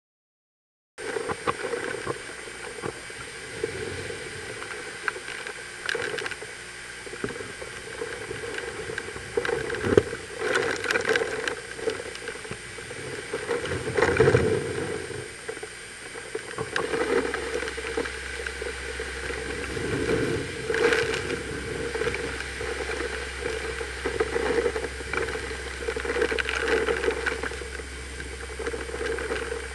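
Hurricane Wilma's wind and driving rain buffeting the camera microphone, starting about a second in. It comes in gusts that swell and fade, the strongest about a third and two-thirds of the way through.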